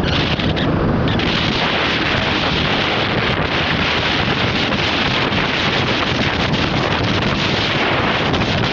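Loud, steady wind buffeting the microphone, a rough rushing noise.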